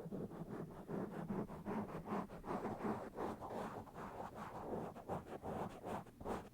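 Fingers scratching and rubbing directly on a bare microphone in fast, rough strokes, about four to five a second, with a few sharper strokes near the end.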